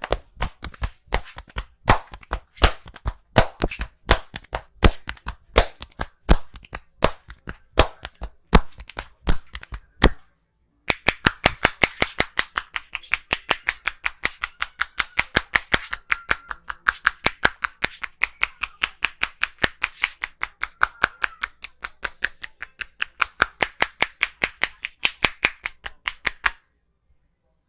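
Rapid percussive hand strikes of an Indian head massage: the barber's hands slap and tap rhythmically, about three strikes a second at first, then after a brief pause a steady faster run of about five a second with a hollow ring, stopping abruptly near the end.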